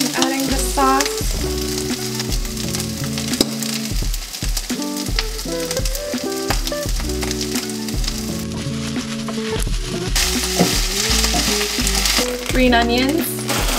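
Kimchi fried rice sizzling in a frying pan on a gas stove while a wooden spatula stirs it. The sizzle grows louder about ten seconds in.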